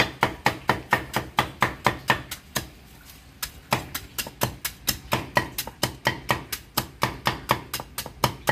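A cleaver chopping rapidly through a bundle of stalks onto a thick wooden chopping board, about four even strikes a second, with a short pause about three seconds in.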